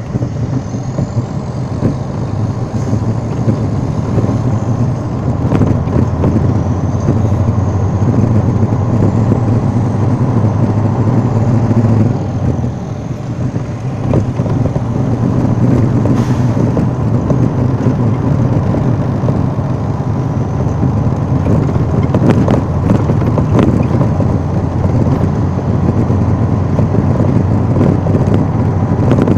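Steady engine and road noise of a moving vehicle heard from inside its cabin: a low drone with tyre rumble, a few light knocks, and a short drop in the drone about twelve seconds in.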